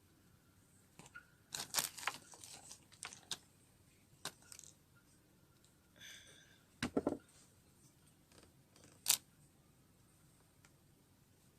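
Hands handling small craft materials at a table: scattered light clicks and rustles, a cluster in the first few seconds, a soft knock a little past the middle and one sharp click near the end.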